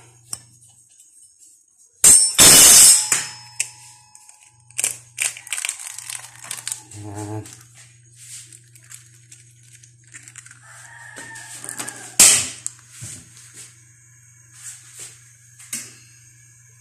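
An egg frying in a little oil in a nonstick pan: the hot oil crackles and pops, with a loud rush of sizzle about two seconds in and a sharp crack about twelve seconds in, over a low steady hum.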